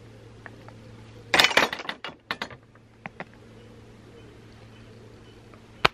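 Wooden field gate swung shut, its metal lever latch clacking into the catch about a second and a half in, followed by a few lighter clicks; the hinges make no creak. A faint steady hum lies beneath, and a sharp snap comes at the very end.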